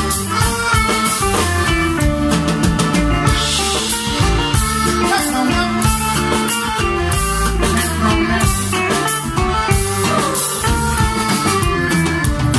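Live band playing with drum kit and electric guitar.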